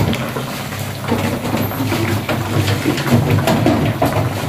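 Steady low rumble of a gas stove burner under a wok of soup, with soft rustling and light ticks as handfuls of fresh mendai leaves are dropped into the pot.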